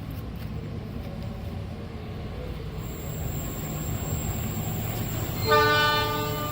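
A train approaching with a steady low rumble, then about five and a half seconds in a locomotive horn sounds, a loud chord of several tones held to the end.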